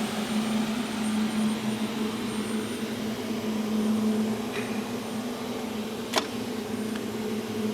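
Steady hum of a hydraulic ironworker's pump unit running at idle, with one sharp click about six seconds in.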